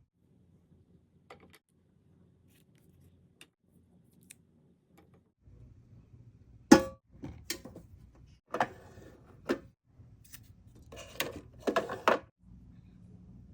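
Small plastic toy packaging handled by hand: a few faint clicks at first, then, about halfway, a sharp click followed by several short rustles and taps.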